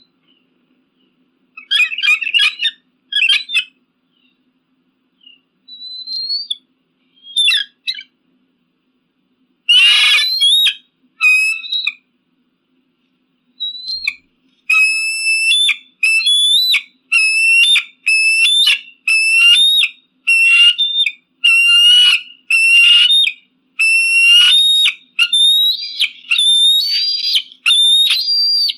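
Eagle calling in high, whistled notes. Short scattered calls with gaps of silence come first, then a louder, harsher call about ten seconds in. Through the second half runs a steady series of repeated yelping notes, a little more than one a second.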